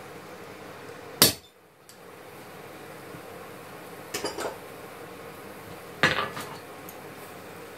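A single sharp hammer blow on a steel punch held against a knife blank on an anvil, about a second in. This is followed by lighter clinks of steel tools around four seconds in and a ringing metal knock near six seconds.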